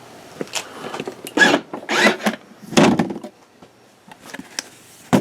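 A few short knocks, bumps and scrapes of things being handled, spread across a few seconds, the loudest in the middle.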